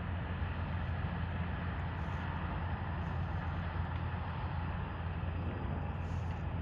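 Steady low engine rumble with a constant hiss, without change in pitch or level.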